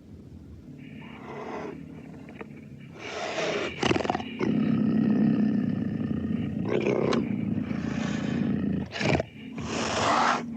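Vintage sound-effect recording of a cougar snarling and growling: a string of harsh snarls about a second long each, with a longer low growl in the middle.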